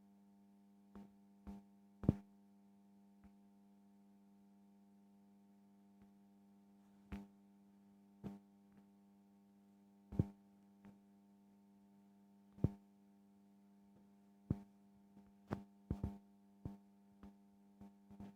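A steady low electrical hum with a faint buzz of overtones, broken by sharp clicks or taps at uneven intervals, a handful early on and a quicker cluster near the end.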